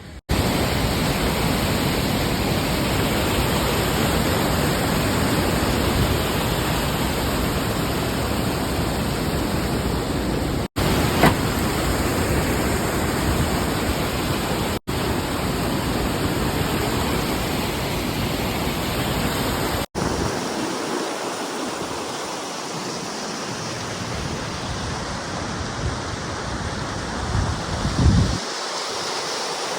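Steady rushing noise of running water, cut by three brief dropouts at edits; after about two-thirds of the way through it turns thinner, with much less low rumble.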